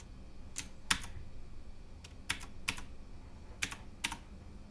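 Keys being pressed one at a time on a Cooler Master MasterKeys Pro M mechanical keyboard with Cherry MX switches: short, sharp clicks that come in pairs, three pairs about a second apart.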